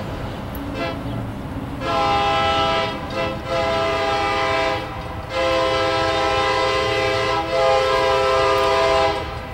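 Norfolk Southern freight locomotive's air horn sounding as the train approaches: a short toot just under a second in, then three long blasts, the last held about four seconds, several notes sounding together as a chord.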